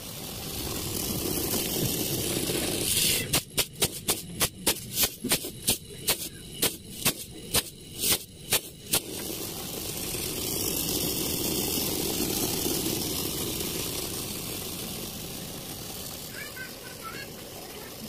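LG BSA075NHMV inverter refrigerator compressor running with a steady low hum, working normally after a reset of the control board. From about three seconds in, for some six seconds, a run of sharp clicks sounds over it, about three a second.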